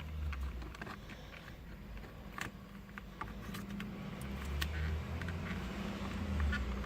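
Scattered light clicks and taps of plastic parts as a replacement clock spring is slid onto the steering column, over a low rumble.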